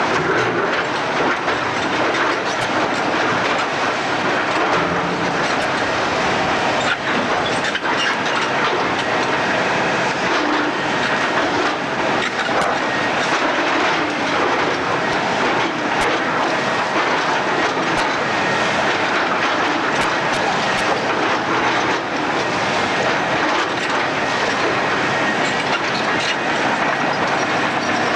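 Building demolition: a steady, loud grinding rattle, dotted with many small cracks and clatters of breaking and falling rubble.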